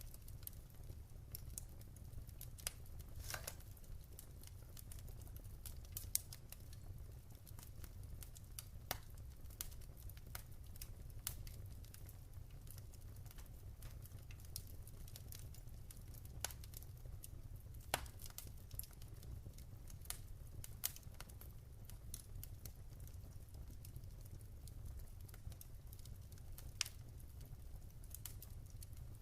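Wood fire crackling in a fireplace: irregular sharp pops and snaps, a few louder than the rest, over a steady low rumble.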